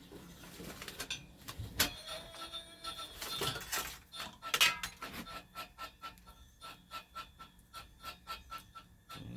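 Homemade wire stripper driven by an old treadmill motor, working with single-core wire. A few sharp clicks and knocks come first, then an even ticking at about four or five a second.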